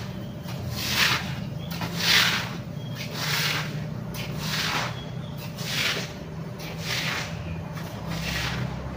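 Rhythmic rubbing swishes on the microphone, about one a second, like cloth brushing against a covered phone, over a low steady hum.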